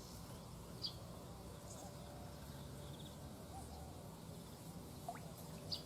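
Faint outdoor background with two short, high bird chirps, one about a second in and one near the end.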